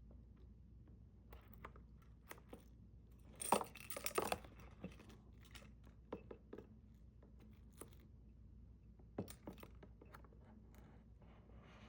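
Packaging on a boxed music album being torn open and crinkled by hand. The loudest tearing comes about three and a half seconds in, with scattered small clicks and rustles around it.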